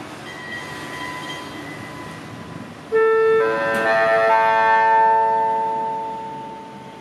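Station public-address chime: several electronic notes sound in quick succession about three seconds in, ring on together and fade away, the signal that an announcement is about to follow.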